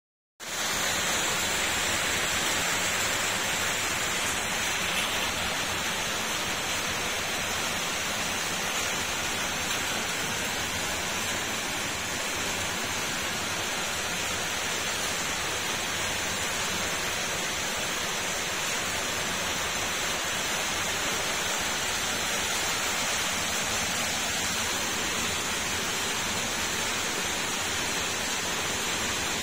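A steady, even hiss with no separate sounds in it.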